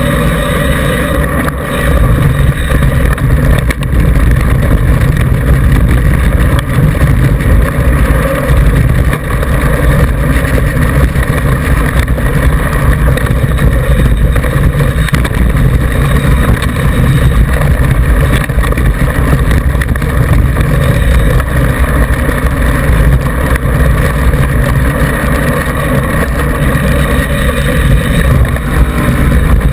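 Steady loud rumble of wind and road vibration on a bike-mounted action camera as a mountain bike's knobby tyre rolls downhill over gravel and a dirt track.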